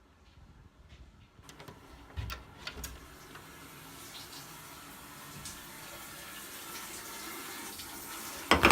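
Water running from a tap, a steady hiss that starts about a second and a half in and slowly grows louder, with a few faint clicks. A sudden loud burst of sound comes right at the end.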